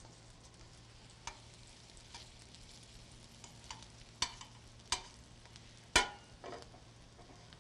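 Eggplant slices frying in olive oil in a stainless steel sauté pan, a faint steady sizzle, with metal tongs clicking against the pan four or five times, the loudest about six seconds in.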